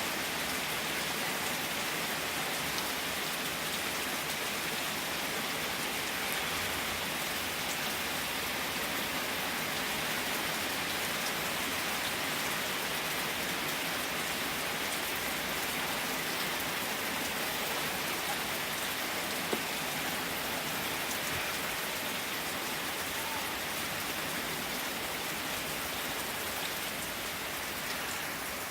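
Steady heavy rain from a summer pulse thunderstorm, pouring down.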